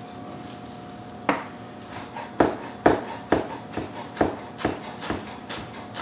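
Chef's knife chopping cilantro on a cutting board: sharp knocks of the blade against the board, starting about a second in and coming at about two a second.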